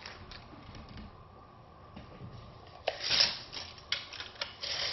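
Handling noise as a tape measure is pulled out along a plastic-sleeved lightsaber blade tube: light rubbing and rustling, a louder burst of noise about three seconds in, then a few sharp clicks and another short burst near the end.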